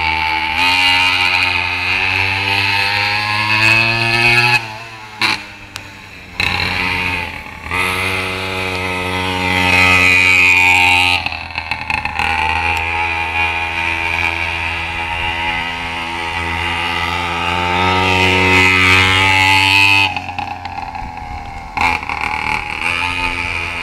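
Mini moto (pocket bike) engine being revved: the revs climb and fall back several times, dropping sharply about four and a half, eleven and twenty seconds in, with steadier running in between.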